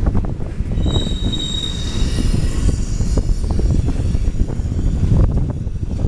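Freight train cars rolling through a curve with a steady low rumble, and a high-pitched wheel squeal that starts about a second in and fades out by about five seconds.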